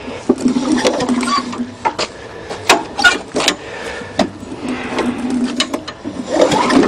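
Recoil pull starter of a Tecumseh lawnmower engine being pulled by hand to turn the engine over for a compression check, twice, with clicks and knocks between the pulls. The engine shows good compression.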